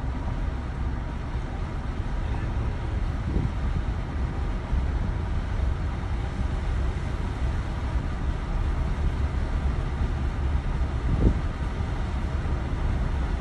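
Steady road noise from a moving vehicle heard from inside the cabin: a low rumble of engine and tyres, with a couple of light bumps.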